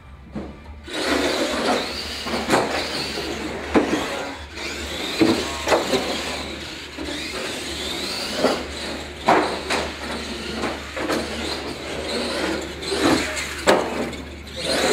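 Radio-controlled monster trucks racing: their motors whine and change pitch as they speed up and slow down, with repeated sharp knocks and clatters as the trucks hit the ramps and the floor. The sound grows louder about a second in.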